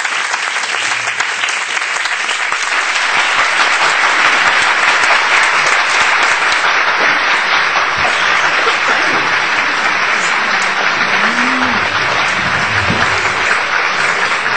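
Audience applauding: loud, steady clapping from a full room, swelling a little a few seconds in.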